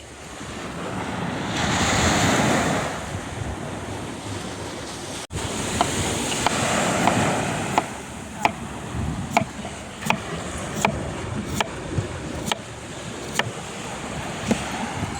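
Sea waves washing on the shore, one surge swelling and breaking about two seconds in. Past the middle, a regular run of sharp taps, roughly one every three-quarters of a second, sounds over the surf.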